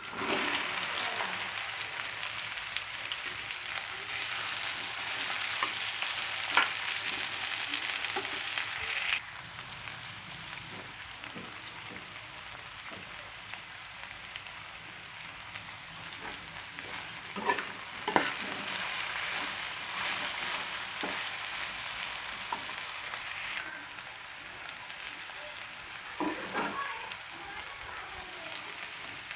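Food sizzling as it fries in hot oil in a pan, with a few clinks of a stirring utensil against the pan. The sizzle drops noticeably quieter about nine seconds in.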